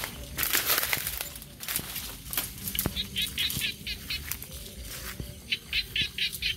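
Footsteps and rustling through dry grass and brush as people walk a riverbank at night. A rhythmic chirping call, about five short pulses a second, comes twice.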